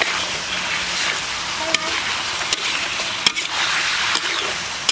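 Eel pieces sizzling as they are stir-fried in a large metal wok, with a metal spatula clicking and scraping against the pan several times as it stirs.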